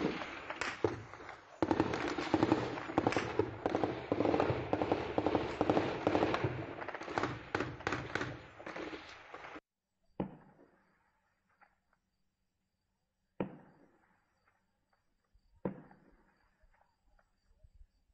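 Gunfire exchanged in an armed tribal clash: a dense run of rapid shots for about nine and a half seconds, then, after an abrupt cut, three single shots a few seconds apart, each trailing off in echo.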